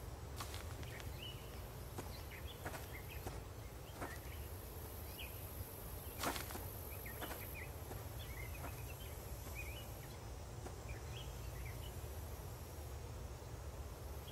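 Outdoor ambience: small birds chirping in short, scattered calls over a steady low rumble, with a few sharp clicks or snaps, the loudest about six seconds in.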